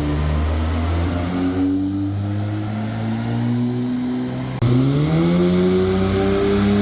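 Audi S3's engine pulling under acceleration, its pitch shifting through the revs; an abrupt jump about two-thirds of the way in is followed by revs climbing steadily.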